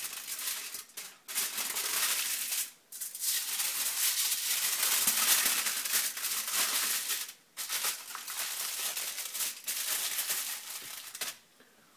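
Aluminium foil crinkling and rustling as it is folded by hand into a closed packet, in long stretches with short breaks about one, three and seven and a half seconds in, stopping shortly before the end.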